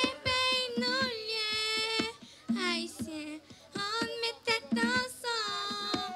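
A young girl singing a French-language song about Haiti into a microphone, with notes held for about a second at a time.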